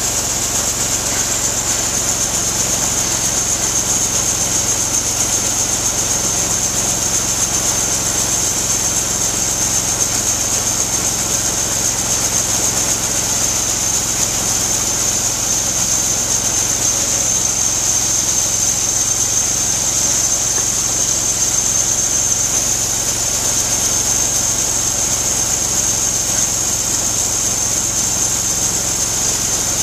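Portable bandsaw sawmill running steadily: an even engine hum with a steady high whine over it.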